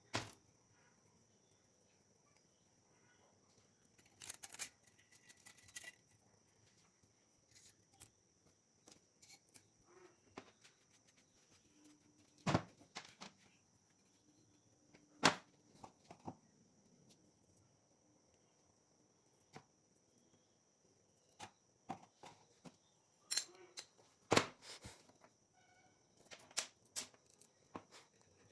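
Scattered sharp clicks and knocks of hand tools and metal engine parts being handled during scooter engine reassembly, with a faint steady high hiss underneath.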